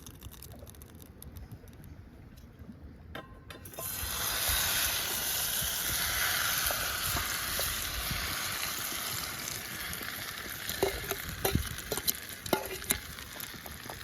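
Food sizzling in a hot pan over a campfire. The sizzle starts suddenly about four seconds in and slowly eases, with a few sharp knocks near the end, likely a utensil striking the pan.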